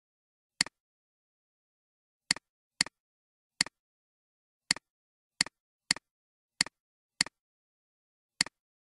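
Computer mouse clicks: ten sharp clicks at uneven spacing, about half a second to a second apart, each with a softer click just after it.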